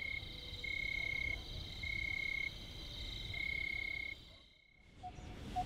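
Night chorus of calling frogs and insects: a steady high trill with a clear high note pulsing on and off about once a second. It cuts out about four and a half seconds in, and a lower call repeating about twice a second starts near the end.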